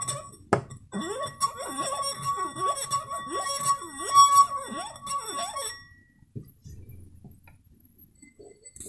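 Water-filled wine glass singing as a fingertip circles its rim: a steady ringing tone, with a lower squeaky rubbing that rises and falls about twice a second. A tap breaks it briefly just after the start, and the tone stops about six seconds in.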